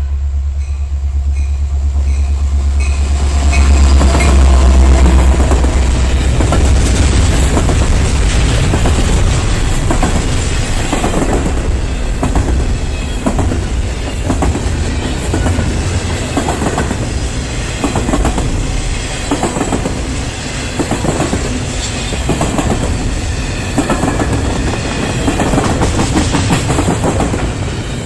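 A freight train passes close by, led by an EMD SD60 diesel locomotive. The locomotive's deep engine rumble is loudest about four to five seconds in. Intermodal container cars follow, their wheels clicking and knocking over rail joints in a steady repeating clickety-clack.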